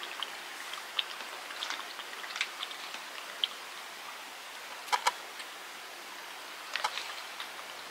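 Cat eating a soupy wet cat food from a plastic bowl: quick, faint wet lapping and chewing clicks, with a couple of sharper clicks about five seconds in and another small cluster near the end.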